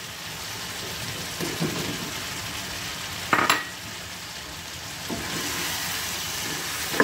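Chicken pieces sizzling in oil in a nonstick frying pan, with a brief clatter a little over three seconds in as raw potato pieces go into the pan, then a spatula stirring and scraping through the curry.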